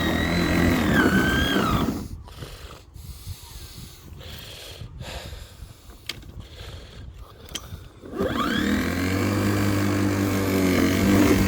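Worx 42 cm battery lawnmower's electric motor running with a whine that sags in pitch and cuts out about two seconds in; a few seconds later it starts again, the whine rising as the blade spins up, and runs steadily. The mower is struggling in damp grass, which the owner says hasn't got the oomph.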